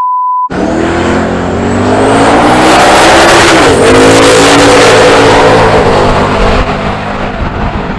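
Drag cars launching and accelerating hard at full throttle, one of them a twin-turbo Oldsmobile Cutlass 442. The engine pitch climbs, drops suddenly at a gear shift about three and a half seconds in, climbs again, then falls off near the end as the cars pull away.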